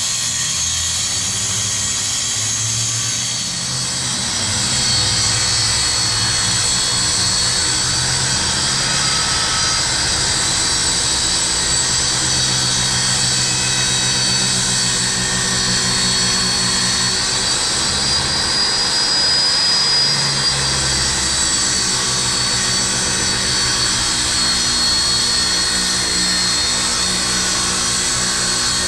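Corded circular saw running through a sheet of plywood in one long, continuous cut, its high whine wavering slightly in pitch as the blade loads, with a brief dip a few seconds in.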